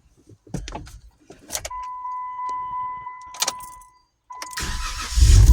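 A few clicks and a steady high beep, then near the end the 2014 Jeep Wrangler's starter cranks briefly and the engine catches and runs. It now starts with the faulty starter relay replaced.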